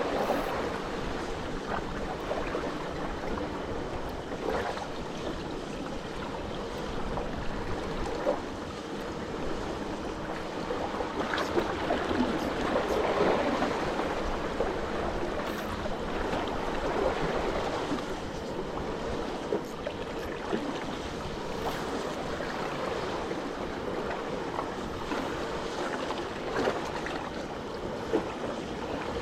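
Sea water washing and splashing steadily, with small splashes and clicks scattered through it.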